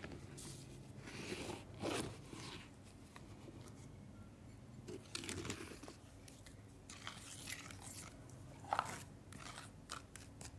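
Wet clay paste being squeezed and stirred by hand and spoon in a bowl: irregular squelching with short clicks.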